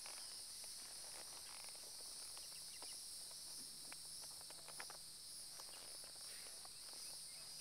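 Faint, steady high-pitched drone of calling insects, with a few faint scattered ticks.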